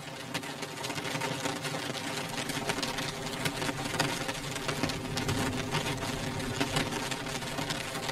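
Rain beating on a windowpane: a dense, irregular patter of drops ticking on the glass over a steady wash of rain.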